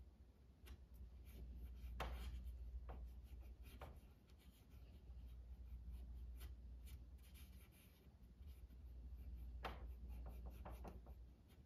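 Faint, intermittent scratchy rubbing of a cotton swab scrubbing paint off metal nail heads on a wooden credenza, over a low steady hum.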